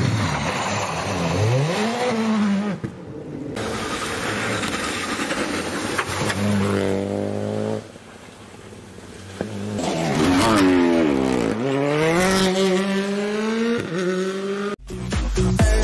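Rally cars passing one after another on a tarmac stage, their engines revving up and down through gear changes, with sudden cuts from one pass to the next. Music starts near the end.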